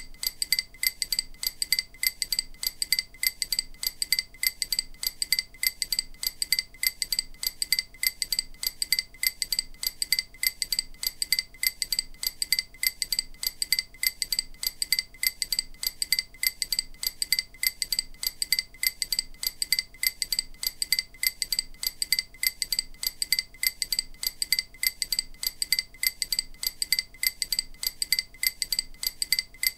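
EMDR bilateral-stimulation audio: short, high, chime-like ticks repeating at a steady, even pace, meant to alternate between the left and right ears.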